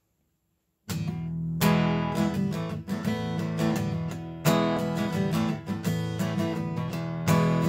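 Acoustic guitar strummed in a steady rhythm, starting about a second in after silence, with a heavier strum roughly every three seconds: an instrumental lead-in with no singing.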